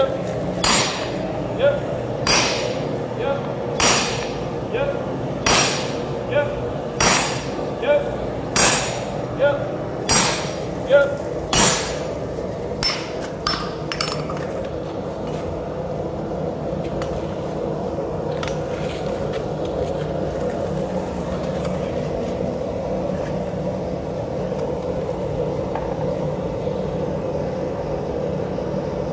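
A sledgehammer strikes a handled top tool held on red-hot axe steel on an anvil, about fifteen ringing blows roughly 0.8 s apart, followed by a few lighter taps. The blows stop about halfway through, leaving a steady background hum.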